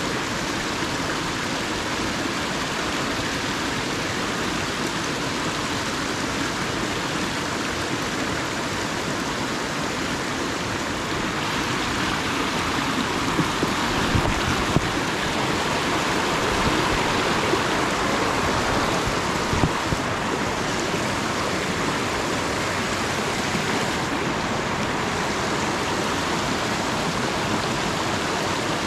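River water rushing steadily over rocks in a shallow, white-water riffle. A few brief, faint knocks come through about halfway in.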